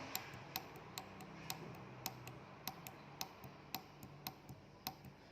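Small tactile push button on a breadboard being pressed over and over, a sharp click about twice a second, each press stepping the seven-segment counter up by one.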